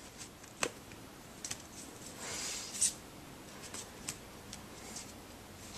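Quiet handling of cards: a few light clicks and taps with a soft rustle about two seconds in.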